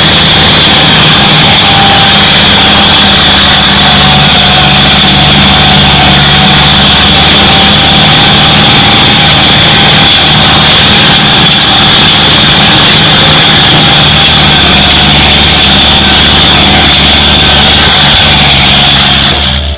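County 754 forestry tractor's diesel engine running steadily under way, heard loud from the driver's seat, with a steady high whine over it.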